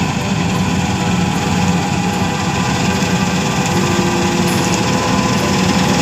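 New Holland 8080 combine harvester running steadily while cutting standing wheat: engine and header machinery with an even, unbroken drone.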